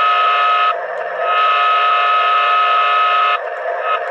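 Menards O gauge Santa Fe F3 model diesel locomotive's onboard sound system playing its horn through the model's speaker: a blast ending under a second in, then a blast of about two seconds, each cutting off abruptly rather than trailing away. Steady idling diesel prime-mover sound from the same model runs underneath throughout.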